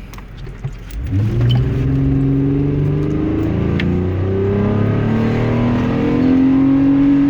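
The 3.8-litre V6 of a 2006 Dodge Grand Caravan with a K&N cone-filter short ram intake under hard, full-throttle acceleration, heard from inside the van. The engine note jumps up about a second in and climbs steadily in pitch until the throttle comes off at the very end.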